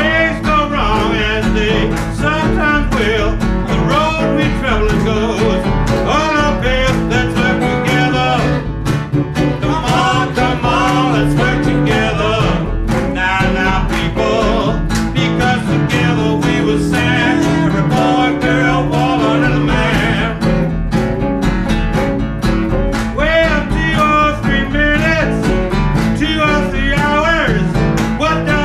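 Live blues band playing, with a guitar prominent over a steady bass and drum beat.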